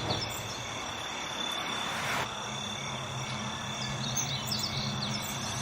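Outdoor nature ambience: insects trilling steadily at a high pitch over a soft hiss, with a few brief bird chirps about three and a half seconds in.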